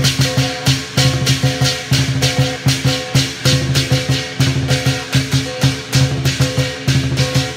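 Lion dance percussion: a Chinese lion drum beaten together with crashing cymbals in a fast, steady rhythm that drives the lion's moves on the poles.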